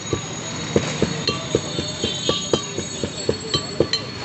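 Rhythmic knocking, about four knocks a second, as green mango is mashed and mixed by hand in a container for am vorta.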